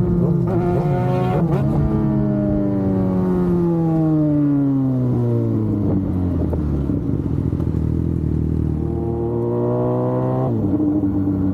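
Yamaha FZ6 Fazer 600's inline-four engine under way. It revs up and down quickly at first, then its revs fall steadily for several seconds as it slows. It climbs again under throttle and drops suddenly near the end.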